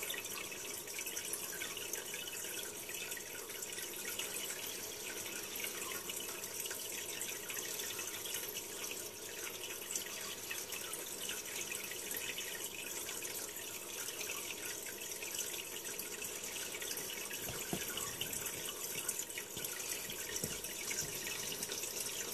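Aquarium water bubbling and trickling steadily, played through a laptop's speakers.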